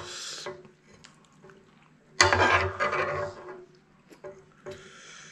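Close-miked eating sounds: a metal spoon scooping and scraping spicy seafood noodle soup from a frying pan, with a louder wet slurp-like burst about two seconds in.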